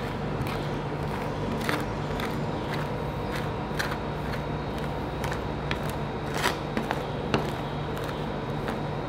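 Metal spatulas scraping, chopping and tapping on a frozen ice-cream-roll cold plate as ice cream is mixed and spread flat. There are irregular sharp clicks and scrapes, a few louder strikes among them, over a steady hum.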